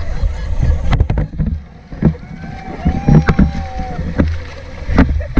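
Inflatable raft on a fast river: rushing water with wind rumbling on the microphone and a few sharp knocks.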